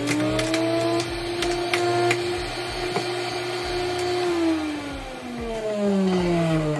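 Mueller centrifugal juicer's motor running at full speed with a steady whine, then switched off about four seconds in, its spinning basket winding down in a long falling whine.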